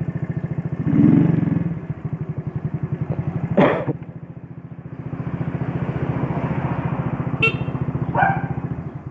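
Shineray Jet 50cc scooter engine idling with a steady, rapid pulse. A dog barks a few times in the background, about a third of the way in and twice near the end.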